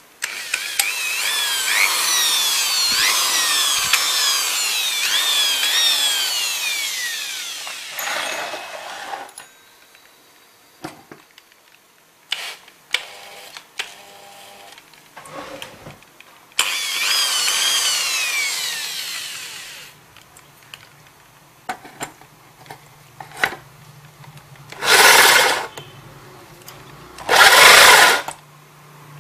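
Electric drill fitted with a hole saw, running in two long spells with its whine rising and falling in pitch as the speed changes. Near the end come two short, loud bursts as the hole saw bites into the UPS's plastic case.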